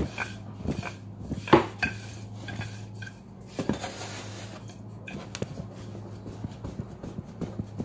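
Wooden rolling pin knocking and rolling over layered croissant dough on a wooden pastry board: a run of irregular taps and thuds, the loudest about a second and a half in. A steady low hum runs underneath.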